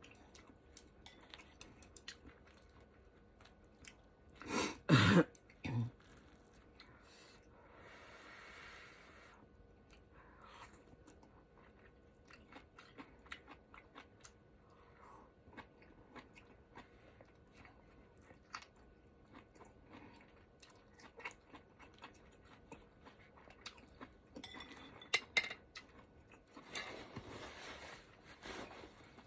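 Close-miked eating of a ramen hot pot: wet chewing, mouth clicks and soft crunching, with a short loud throat sound about five seconds in and a smaller one a second later.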